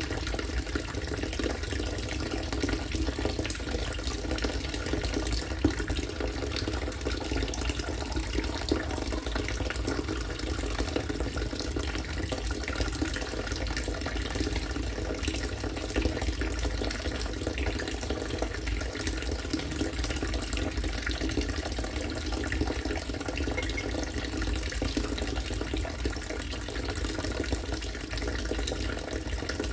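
Rainwater from a rainwater-harvesting system falling in a steady stream into water, splashing without pause.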